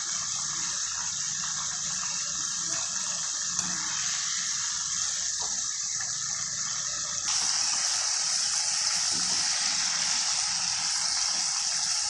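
Batter-coated chicken pieces deep-frying in hot oil: a steady, vigorous sizzle that gets suddenly louder about seven seconds in. The strong bubbling shows the chicken is still frying, not yet done.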